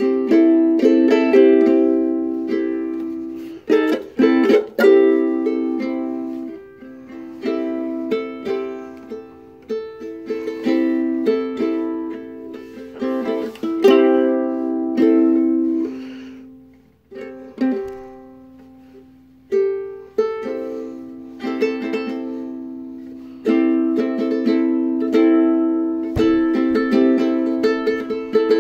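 Ukulele played solo: picked notes and chords ring out and decay, with a few quick strums about four seconds in. The playing dies away around seventeen seconds in, then picks up again.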